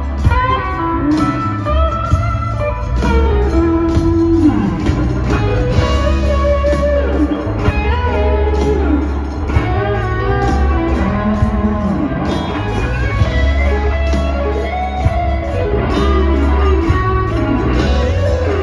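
Live electric guitar solo in a slow blues-rock style, played lead with many bent notes sliding up and down in pitch, over a band with sustained bass notes and drums.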